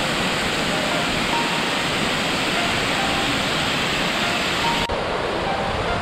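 Steady rushing of a waterfall and the river rapids below it, a continuous hiss of falling and churning water that shifts slightly in tone about five seconds in.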